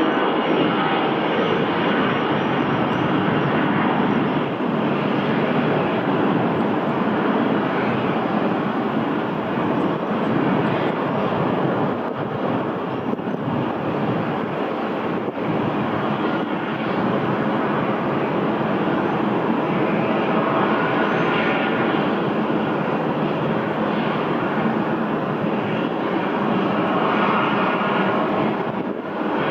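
Boeing 787-9 Dreamliner's jet engines at low taxi thrust: a steady, even roar that holds level throughout.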